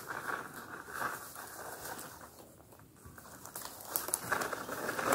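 Dry leaves and cut branches rustling and crackling as a man hauls an armful of branches up through leaf litter. It grows louder again in the last second or so, with a few sharp cracks.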